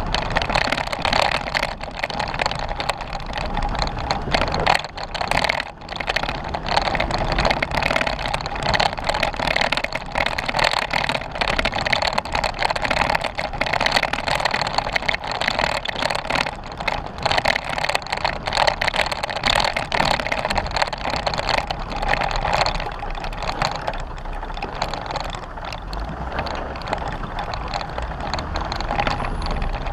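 Jeep Wrangler driving over a rough dirt trail: steady vehicle noise with frequent small knocks and rattles.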